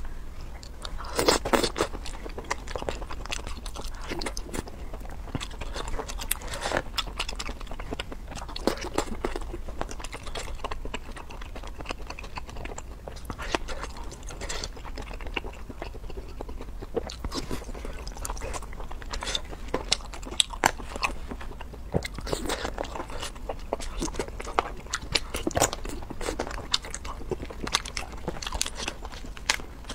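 Close-up eating sounds: crayfish and slipper lobster shells cracking and being pulled apart, with crunching, biting and chewing. These come as irregular clicks and crackles all the way through.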